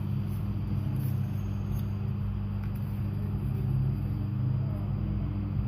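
A steady low mechanical hum, like a motor running, throughout.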